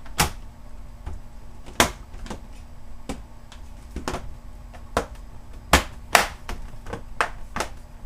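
Dell Inspiron 7568 2-in-1 laptop's plastic bottom cover being pressed back on, its retaining clips snapping into place in about eight sharp clicks at uneven intervals.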